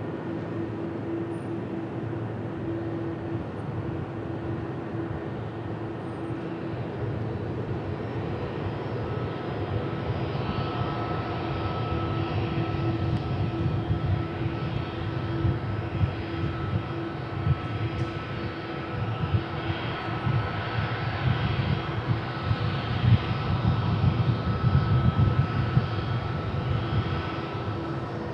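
A jet airliner's engines running: a low rumble that builds through the second half and turns rough and uneven, over a steady hum.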